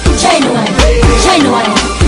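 Dancehall song playing: a heavy bass beat under sliding melodic lines.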